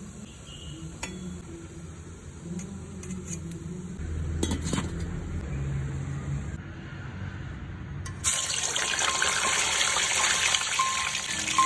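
A few light clicks of metal tongs on a stainless steamer tray, then, about eight seconds in, a sudden loud sizzling as bakso-stuffed crackers go into hot oil in a wok and deep-fry.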